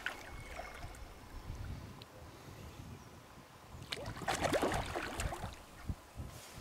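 Water splashing and sloshing, loudest for about a second and a half some four seconds in: a hooked carp thrashing at the surface as it is played towards the net.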